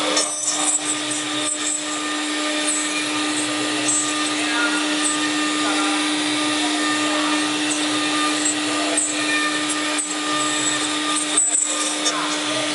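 LH-5101-S CNC router's spindle running with a steady whine while its bit carves into wood, the cutting noise briefly dropping out a few times.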